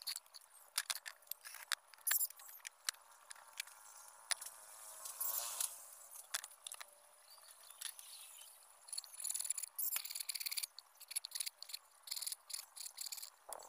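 Small bow-frame hand saw cutting through a thin bamboo tube: an irregular run of short rasping strokes and clicks, with quicker runs of strokes in the second half.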